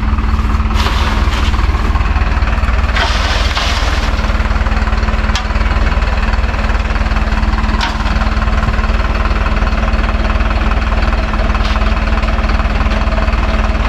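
Sand tipper truck's engine running steadily while its bed tips the load of sand, with brief hissing rushes about a second in and again around three seconds in.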